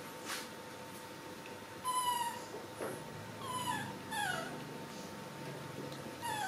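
Young macaque giving short, high-pitched calls, four in a few seconds, most of them falling in pitch.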